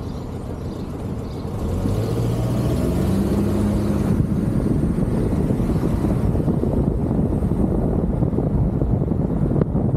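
Car pulling away from a standstill: the engine note rises over about two seconds, then settles into steady road and tyre noise as the car drives on. A single sharp click near the end.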